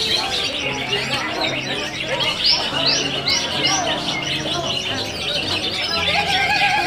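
Several caged greater green leafbirds (cucak ijo) singing at once in a contest, a dense overlapping chatter of song, with a run of four loud sweeping notes about a third of the way in.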